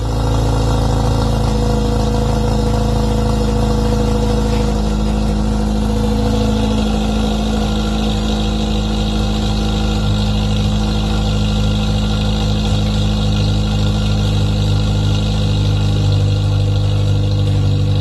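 Honda Civic engine idling through an aftermarket header and catback exhaust with no catalytic converter, heard close to the exhaust tip. It runs steadily, its tone shifting slightly about six seconds in.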